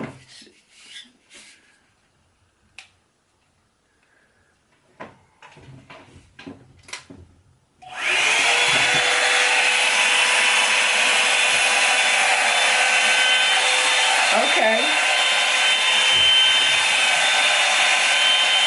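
A few clicks, then about eight seconds in a Revlon one-step blow dryer brush switches on and runs with a loud, steady rush of air and a motor whine.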